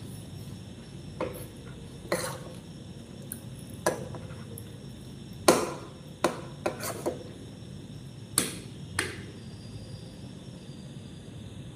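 A metal spoon clinking and scraping against a ceramic plate while someone eats, about ten separate sharp clinks with a short ring, the loudest about halfway through.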